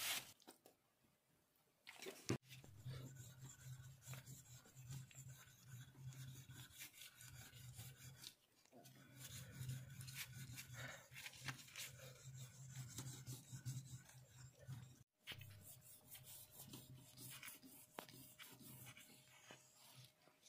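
Steel putty knife blade laid flat and rubbed on a whetstone: a faint gritty scraping that starts about two seconds in and breaks off briefly a couple of times.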